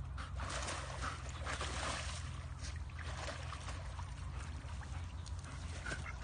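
Water splashing and sloshing as a dog wades through a shallow, muddy stream, over a steady low rumble.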